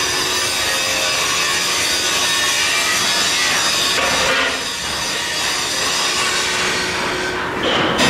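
Loud, steady workshop noise of metal fabrication: a continuous dense racket of metal being worked with tools.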